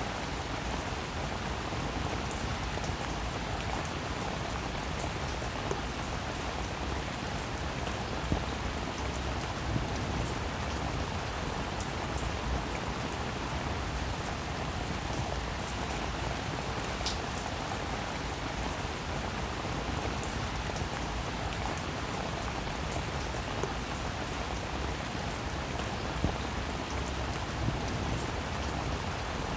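Steady rain falling on a surface, with scattered individual drops ticking through a continuous hiss.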